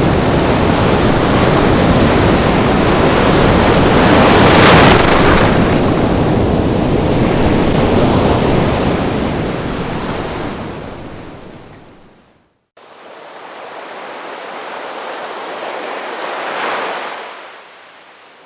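Sea waves breaking on a shore: a big wave swells and crashes about four seconds in, then washes out and fades. After a brief cut to silence just past the middle, a smaller wave rises and breaks near the end.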